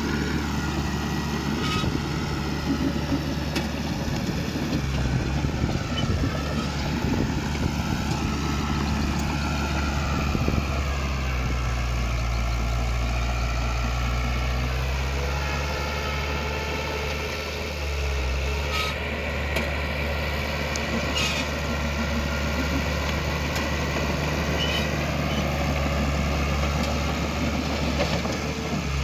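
Heavy diesel earthmoving machinery running steadily, its engine note rising and falling as it works, with two sharp knocks about two-thirds of the way in.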